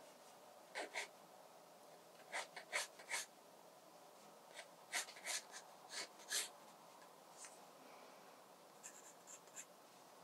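Pencil sketching on watercolour sketchbook paper: faint, short scratchy strokes in small quick groups, with brief pauses between them.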